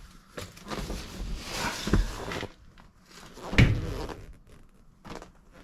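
Rustling and knocking as a car's rear seat back is handled and worked into place, with two thumps, the louder one a little past halfway.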